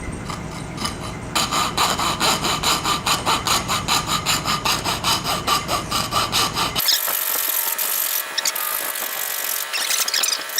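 Coping saw cutting walnut in quick, even back-and-forth strokes, about three a second. A little past halfway the sound cuts abruptly to a thinner, scratchier stroking with the low end gone.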